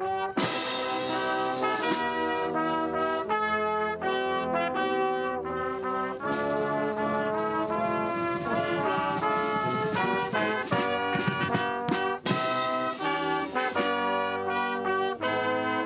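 Naval military brass band playing: trumpets, trombones, saxophones, clarinet and tuba striking up together, with a crash roughly every six seconds.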